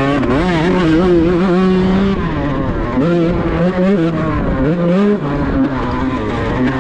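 Kawasaki Ninja two-stroke race-tuned engine being revved repeatedly: the pitch climbs, holds for about a second, then falls back, three or four times over.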